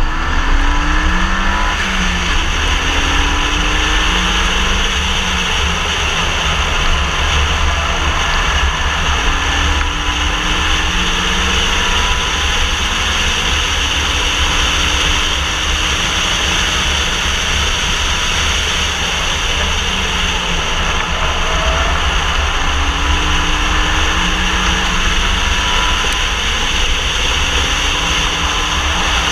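Renault Mégane RS at speed on track, heard from a camera mounted outside by the front wheel: heavy wind buffeting and tyre and road roar over the turbo four-cylinder engine, which climbs in pitch several times as it accelerates.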